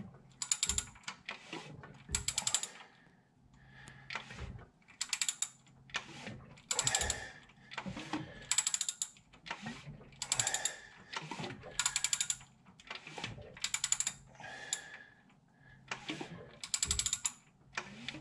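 Hand ratchet wrench clicking in repeated short strokes, about once a second, as the engine is turned over by hand to check that every valve opens and the push rods are seated.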